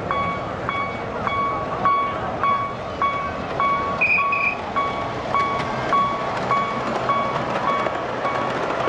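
Miniature ride-on train's electronic warning beeper sounding a steady, even high beep about twice a second as the train runs along its track. A brief higher tone cuts in about four seconds in.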